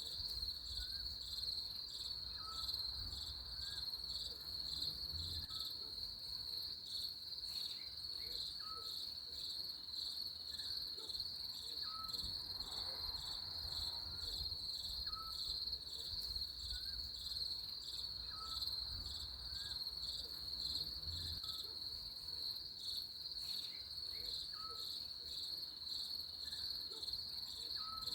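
Crickets chirping in a steady, high, rapidly pulsing trill, with a faint short note repeating about every second and a half beneath it.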